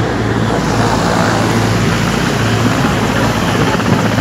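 Air Force helicopters running on the ground, their engines and rotors making a loud, steady, unbroken noise.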